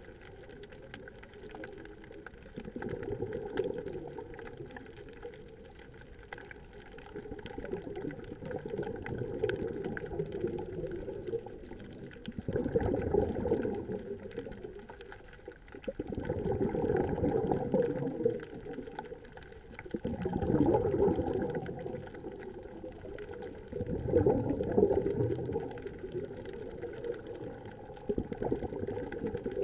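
Scuba diver breathing through a regulator underwater: exhaled bubbles rush out in bursts every three to four seconds, louder in the second half.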